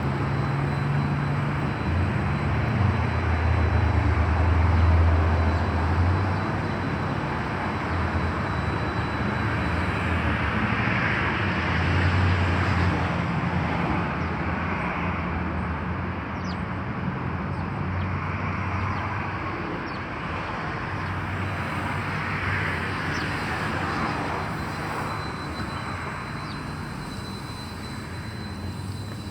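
Street traffic: vehicles passing with a low engine rumble that swells about five seconds in and again around twelve seconds, over a steady hum of the street.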